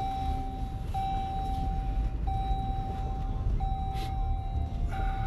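Rental Jeep's dashboard warning chime: one steady tone held a little over a second, repeated about five times with short breaks, over the low rumble of the car.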